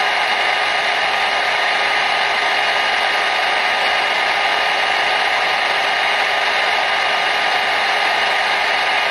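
Hair dryer running steadily: an even rush of blown air with a constant whine from its fan motor, unchanging throughout.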